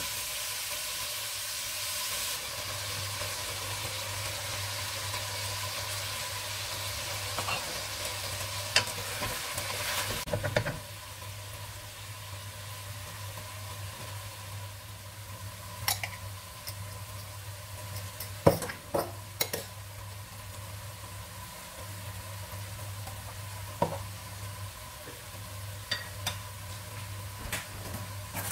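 Chicken pieces with tomatoes and peppers sizzling in hot oil in a nonstick pot while a wooden spoon stirs them, knocking against the pot a few times in the second half. The sizzle is louder for the first ten seconds or so, then settles to a quieter hiss over a low steady hum.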